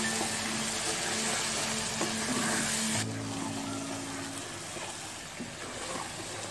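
Chicken pieces sizzling in a tomato-and-spice masala in a nonstick wok as a spatula stirs them. The sizzle drops sharply about three seconds in and carries on more quietly.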